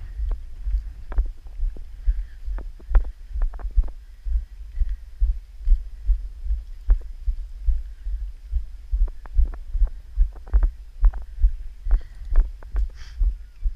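Footsteps crunching and scuffing on a loose-stone mountain path, a regular walking rhythm of about two to three steps a second. Each step jolts the microphone with a low thud, and wind rumbles on the microphone underneath.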